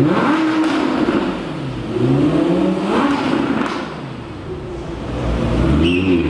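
Audi R8 V10 Plus's 5.2-litre V10 revved inside a garage building as the car rolls slowly past. The engine pitch rises sharply at the start, climbs and falls again about two to three seconds in, drops lower for a moment, then rises once more near the end.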